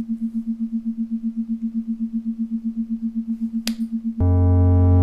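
Electronic tone from a 'space sound' clip: a steady mid-pitched tone pulsing about ten times a second, then, a little past four seconds in, a louder buzzing low drone with many overtones.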